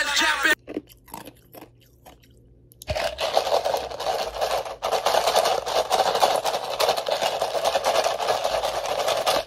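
Ice being chewed close to the microphone: a dense, continuous run of crunching that starts about three seconds in, after a few faint clicks.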